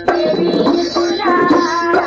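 Marathi devotional folk music in an instrumental passage between sung lines: a hand drum keeps a quick, steady beat under a wavering melodic line.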